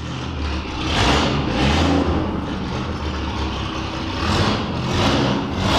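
Straight-piped 1930s pre-war car engine, running with no silencer and blipped on the throttle again and again, each rev swelling louder over a steady low rumble.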